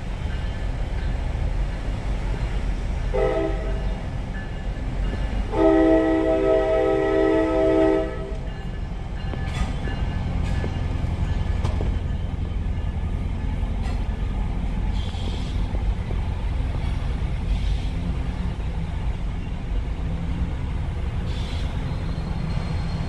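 An NJ Transit commuter train sounds its multi-tone horn for a grade crossing: a short blast about three seconds in, then a long blast from about five and a half to eight seconds, which closes the long-long-short-long crossing signal. The train's steady low rumble goes on as the coaches roll across the crossing, heard from inside a stopped car.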